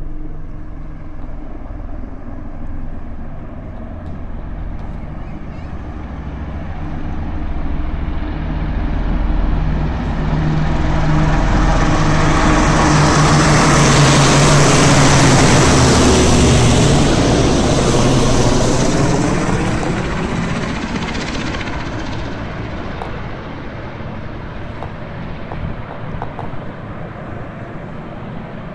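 A formation of military helicopters, including a Westland Sea King, flying low straight overhead. The rotor and engine noise builds over several seconds, is loudest in the middle, then fades as they pass out to sea, its pitch dropping as they go by.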